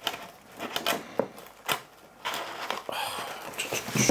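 Handling noise from a hard plastic CGC comic slab being pulled out of a packed shipping box: scattered clicks and light knocks, with a longer rustle of packing in the second half.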